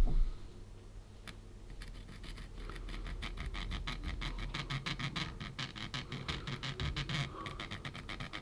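Soldering iron tip rubbed quickly back and forth across an LCD's heat-seal connector strip: a light, rhythmic scratching of several strokes a second, starting about two seconds in. The tip is remelting the strip's dried adhesive so it bonds to the board contacts again.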